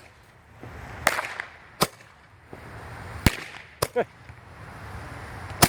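Flashing Thunder Roman candle firing its loud reports: about five sharp bangs at uneven intervals of roughly a second.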